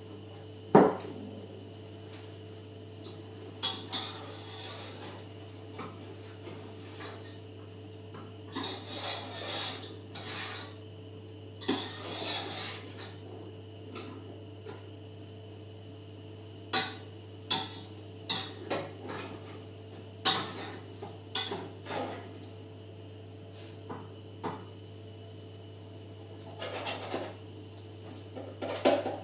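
Frying pan and utensils clattering on a stove: a string of sharp knocks and clinks, the loudest about a second in, with a few longer stretches of scraping and rattling, over a steady low hum.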